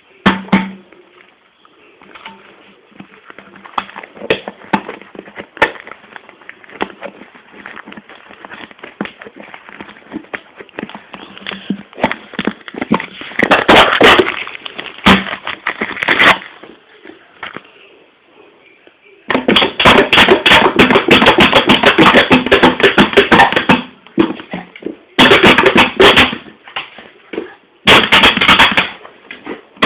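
A Boston Terrier puppy chewing and batting an empty bottle, which crackles and clatters in long bursts of rapid clicks with scattered single knocks between them.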